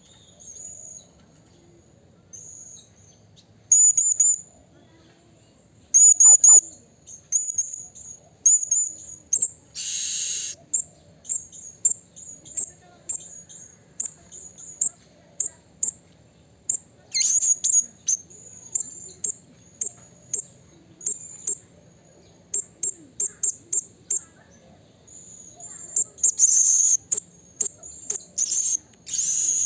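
Blue-crowned hanging parrot (serindit) calling: a long string of short, very high-pitched chirps, some single and some in quick runs, with a louder, harsher burst about ten seconds in. A lure recording used to make other serindit answer.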